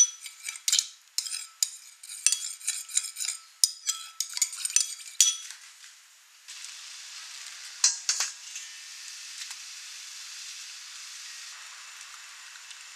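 Metal spoon stirring sauce in a ceramic bowl, clinking sharply and ringing against the sides many times for about five seconds. Then a steady sizzle from a hot pan takes over, with a brief clatter about eight seconds in.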